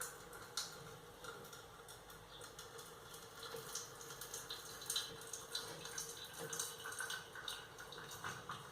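Hot onion and sugar syrup being poured out and draining through a kitchen strainer into a cup, with light irregular drips, splashes and small clicks throughout.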